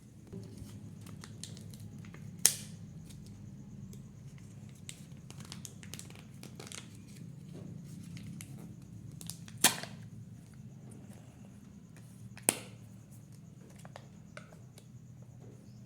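Hands handling Kinder Joy plastic and foil packaging: light crinkling and rustling, with three sharp plastic clicks spaced a few seconds apart, over a steady low hum.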